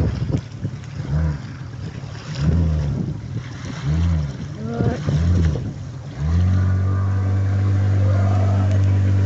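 Outboard motor of an inflatable rescue boat: four short whirs that rise and fall in pitch, then about six seconds in it catches and runs steadily.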